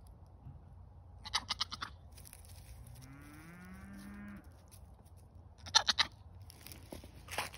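A young goat gives one low, drawn-out moaning call, rising in pitch and then holding, about three seconds in and lasting under two seconds. Short bursts of crackly clicking come a little after one second, near six seconds (the loudest) and near the end.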